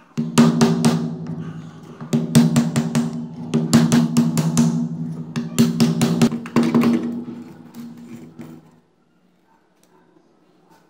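Repeated hammer blows on a punch driving the wound stator out of a blower's metal motor housing, in several quick bursts of sharp metallic strikes over a low steady ringing hum. The hammering stops about three-quarters of the way through once the stator is free.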